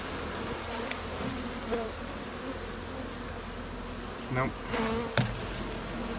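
A mass of honeybees buzzing steadily, a dense hum from the opened colony. A sharp knock about five seconds in.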